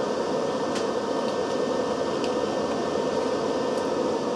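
Steady mechanical hum and whir, like a fan running, with a few faint light ticks.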